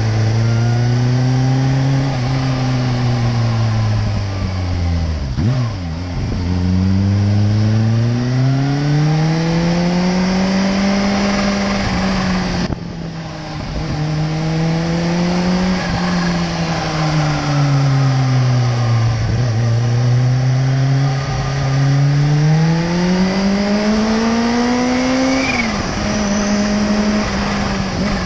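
Sport motorcycle engine under way, its pitch rising under throttle and falling back several times as the rider accelerates and eases off, with a quick drop in pitch near the end like a gear change. A steady rush of wind noise runs underneath.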